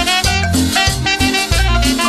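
Instrumental passage of a Latin dance song: a steady bass line under pitched melody instruments, with no singing.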